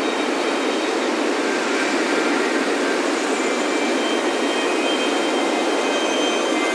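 Ocean surf washing on a beach in a steady, unbroken rush, with wind chimes ringing in high, lingering tones over it, more of them near the end.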